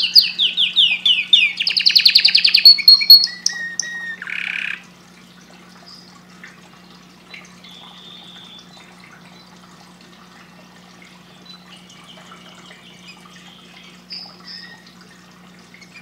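Canary singing: loud, rapid trills of repeated falling notes for about the first three seconds, then a short harsher note, after which the song drops to faint scattered chirps.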